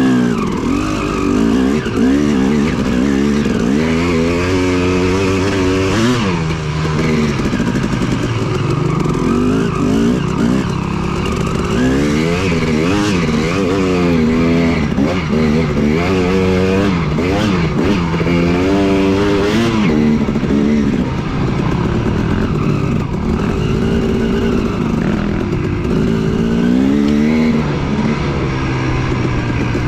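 Yamaha WR450F dirt bike's single-cylinder four-stroke engine under way on a trail, revving up and dropping back again and again, its pitch rising and falling with the throttle.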